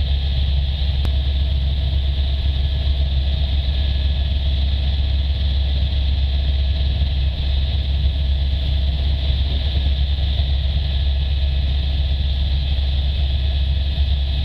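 Helicopter in flight heard from inside the cabin: a steady, loud engine and rotor drone with a strong low hum and a steady hiss above it.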